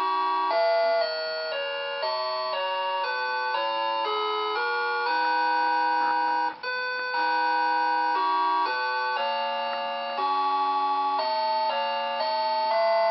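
Electronic Christmas melody in plain, steady beeping notes, a tune line over lower accompanying notes, with a brief break a little past halfway.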